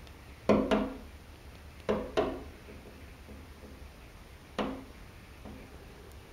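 Common cranes tapping their bills against the observatory window: sharp knocks in two quick pairs, then a single knock and a fainter one, each ringing briefly.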